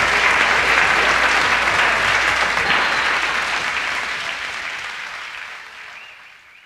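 Live audience applauding, the sound fading out over the last few seconds.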